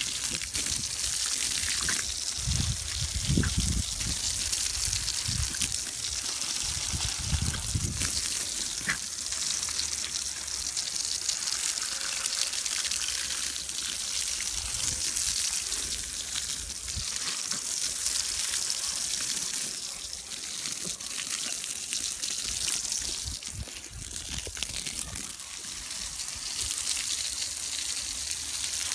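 Garden hose spray hissing and splashing steadily onto grass and ground. A couple of low rumbles come a few seconds in.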